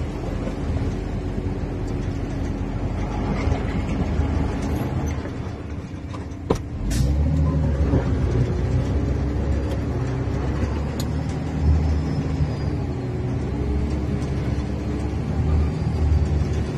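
Heavy truck's engine running steadily under load, heard from inside the cab while wading through a river, with a sharp click about six and a half seconds in.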